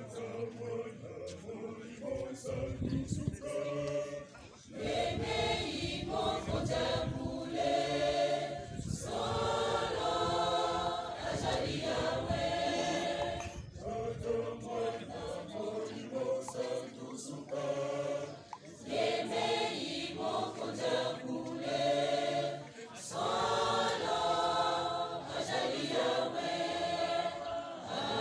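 Large mixed choir of young voices singing a gospel song without instruments, in sung phrases with short breaths between them.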